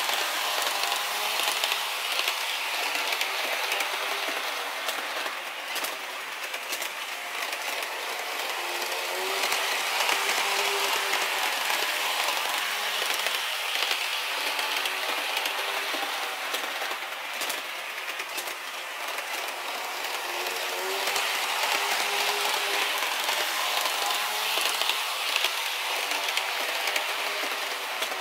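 HO-gauge model trains running on sectional track: wheels clicking and rattling over the rail joints with a faint motor whine, swelling and fading as the trains pass close by and move away.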